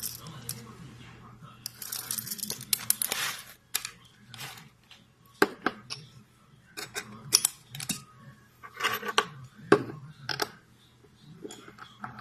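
Metal parts of a stainless steel manual coffee grinder clinking and clicking as it is handled, with a few short scraping rustles between the irregular clicks.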